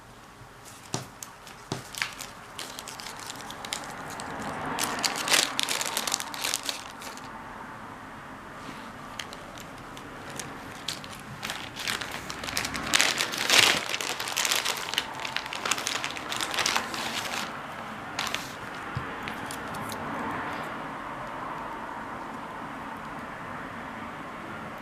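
Irregular crinkling and sharp clicks, like something being handled close to the microphone, heaviest in two spells a few seconds in and again around the middle, quieter near the end.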